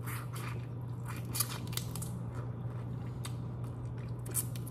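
Crisp crackles and clicks of broiled head-on shrimp shells being peeled and eaten, with two sharper snaps about a second and a half in and near the end, over a steady low hum.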